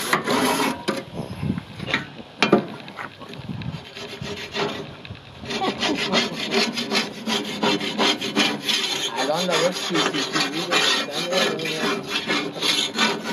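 Back-and-forth scrubbing on a barbecue grill: a few scattered scrapes and knocks at first, then fast, steady scrubbing strokes from about five seconds in.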